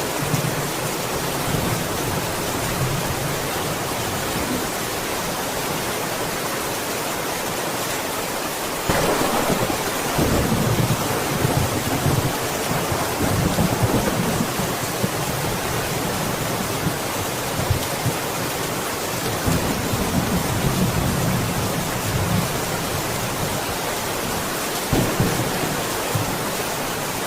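Steady rain with thunder: a peal breaks in about a third of the way through and rumbles on for over ten seconds, and a shorter rumble comes near the end.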